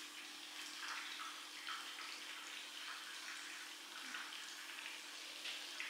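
Faint running-water noise with small scattered splashes, over a steady low hum.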